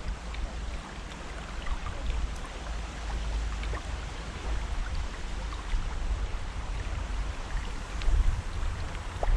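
Wind buffeting the microphone in uneven gusts over water lapping, with scattered faint ticks.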